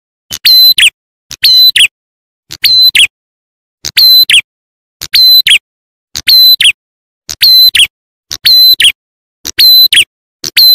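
Lure recording of a ciblek klawu (prenjak atas) bird call, looped: a short, shrill call repeated about once every 1.2 seconds, nine times, each ending in a quick downward slur.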